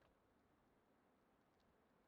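Near silence: faint background hiss with two faint ticks, one at the start and one about a second and a half in.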